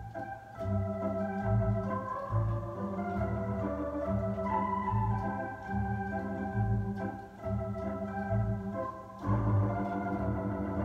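Home console organ playing a polka, with a bass note on each beat under held chords and a melody.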